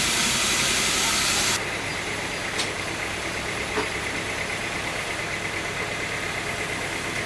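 Sawmill machinery running: a loud hissing noise cuts off abruptly about a second and a half in, leaving a motor running steadily with a faint steady whine and two faint clicks.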